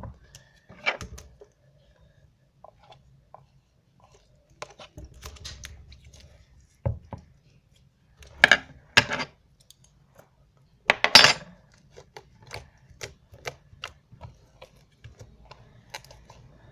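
Clatter of containers and utensils handled on a tabletop: scattered knocks and clinks, the loudest three about eight and a half, nine and eleven seconds in, with softer taps between.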